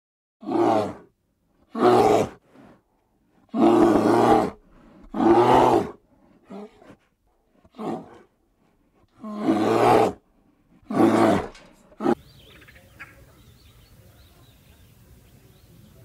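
An animal giving a series of loud, rough calls, about eight of them, each half a second to a second long, which stop about twelve seconds in.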